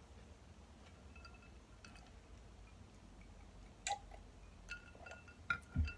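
Faint eating sounds close to the microphone: scattered soft mouth clicks and crunches, with a few louder ones about four seconds in and near the end.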